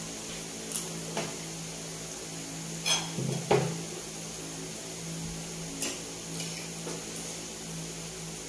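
Spoon and fork clinking against a plate several separate times, loudest in a short cluster about three seconds in, over a steady low hum.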